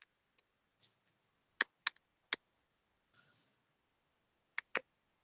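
A few sharp, separate clicks: three about half a second apart in the middle and a quick pair near the end, with fainter ticks around them.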